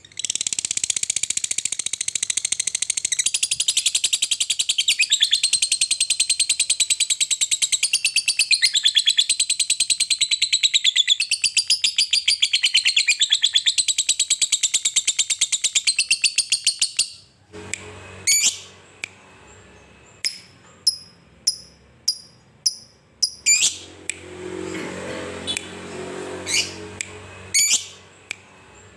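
Fischer's lovebird giving a long 'ngekek': an unbroken, very rapid high-pitched chattering trill for about seventeen seconds, the long-duration chatter prized in a fighter lovebird. It then breaks off into scattered short, sharp chirps.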